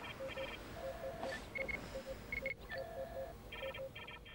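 Computer bleeps: a busy run of short electronic beeps at several pitches, with a slightly longer low tone about a second in and again about three seconds in.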